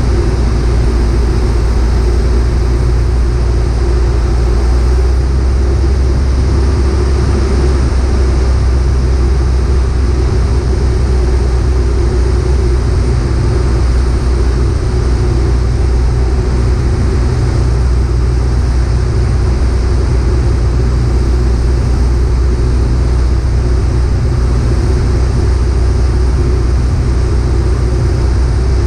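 Piper PA-38 Tomahawk's four-cylinder Lycoming engine and propeller running at a steady power setting in flight, heard as a loud, unchanging drone inside the cockpit.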